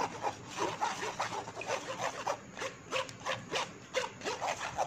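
A spoon scraping and pressing ground jamun pulp against a steel mesh strainer, a run of short, irregular scraping strokes, several a second, as the juice is squeezed through.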